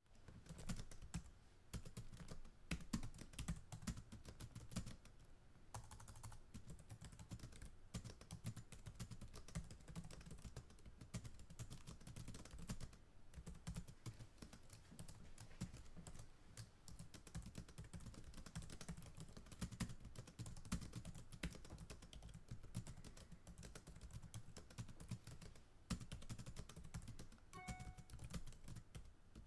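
Faint, continuous computer-keyboard typing: a dense, uneven patter of key clicks that starts abruptly. A brief faint tone sounds near the end.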